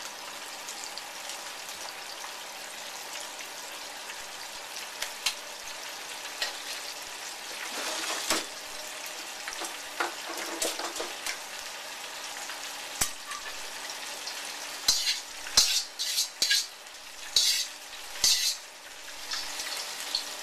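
Hot cooking oil sizzling steadily, with scattered clicks and, a few seconds before the end, several louder sharp spits and crackles.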